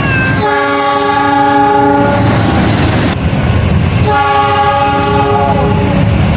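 Diesel locomotive's multi-note air horn sounding two long blasts of about two seconds each, several notes at once, over the low rumble of the train. One note of the second blast bends downward near its end.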